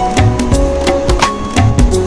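Background music: drums on a steady beat of about two strokes a second under a melody of short pitched notes.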